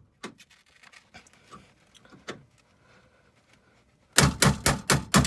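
Hammer striking a punch to knock the centre pins out of aluminium pop rivets in a car door's inner panel: a few faint clicks, then a quick run of about six sharp blows, about five a second, near the end.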